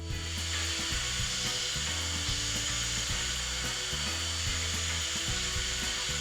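Sun Joe SWD12000 wet/dry shop vacuum running steadily: an even rushing hiss with a thin high whine, under background music with a bass line.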